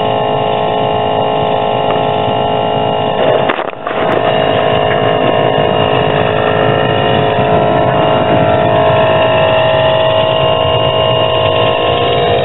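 Steady engine drone, a machine running continuously, with a brief dip about three and a half seconds in.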